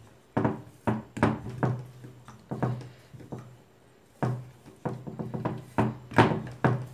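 Wooden rolling pin knocking and rolling on a round wooden board as paratha dough is rolled out: about a dozen irregular wooden knocks, each with a short hollow ring from the board.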